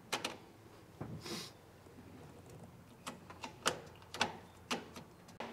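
Sharp mechanical clicks and clunks, about a dozen at irregular spacing, from a newly fitted aftermarket gear shifter in a Nissan S14 being worked and adjusted.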